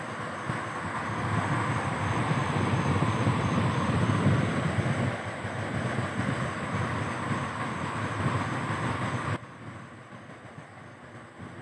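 Steady road and wind noise of a moving car, heard from inside the vehicle, a rumble with hiss over it. It drops suddenly to a quieter level about nine seconds in.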